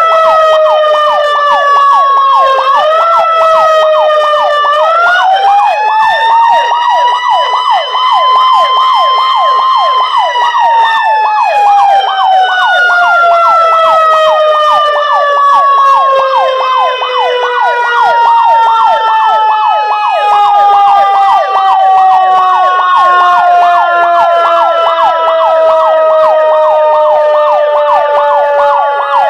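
Fire station siren wailing loudly. Its pitch dips, rises twice and holds high for about four seconds, then slowly winds down over the last twenty seconds. A fast regular pulsing, about two or three beats a second, runs through the tone.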